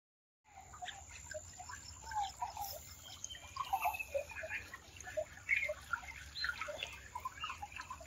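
Shallow spring water trickling and gurgling over gravel and stones, with many small irregular plinks. The sound is faint.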